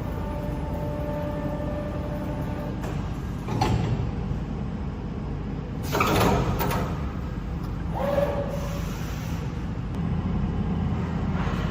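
Tube cutting machine running in a workshop: a steady low hum, broken by several metallic clanks and knocks, a cluster about six seconds in, and a short squeal about eight seconds in.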